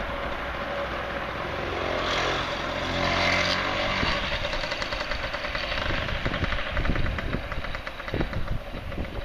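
Wind buffeting a small camera's built-in microphone, a low rumble with crackling gusts. A motor vehicle passes, loudest about two to three and a half seconds in.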